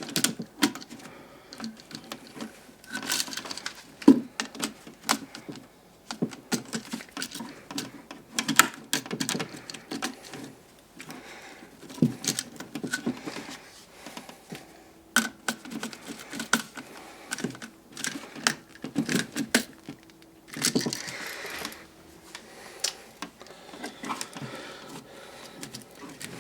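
Irregular small clicks, taps and scrapes of an electrical outlet and its copper wires being handled as the wires are fastened to the terminal screws, black to brass and white to silver.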